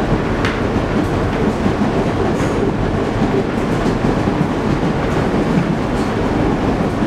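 Interior of an R160 subway car running at speed: a steady rumble of wheels on rail, with a few faint clicks.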